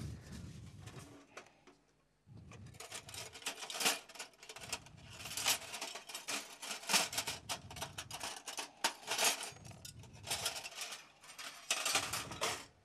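Kitchen knife work: bursts of rapid metallic clicking and scraping from a chef's knife, starting about two seconds in and stopping just before the end.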